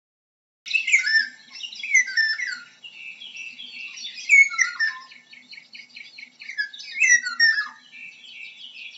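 An oriole singing: a busy, varied run of quick chirps, trills and sliding whistled phrases, with louder bursts and quieter twittering between them, starting just under a second in.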